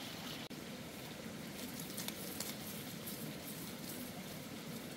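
Steady noise of water, with a brief break about half a second in.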